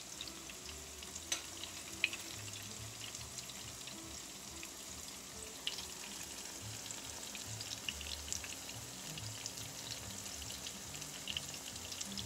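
Sliced plantains frying in shallow hot oil in a skillet: a steady sizzle with scattered small pops and crackles.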